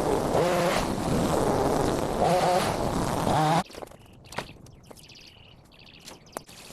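Small petrol engine of a gas-powered cutting tool running at high revs with a wavering buzz, cutting off abruptly about three and a half seconds in. Quieter scattered snaps and clicks follow.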